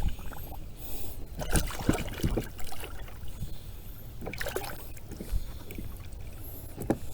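Scattered knocks, clicks and scrapes from handling gear and a hooked fish in a fishing kayak.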